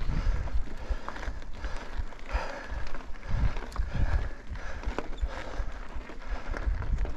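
A mountain bike rolling over a rough, rocky trail: tyres crunching on loose rock and the bike rattling with many short knocks over the bumps, under an uneven low rumble of wind on the helmet-mounted GoPro's microphone.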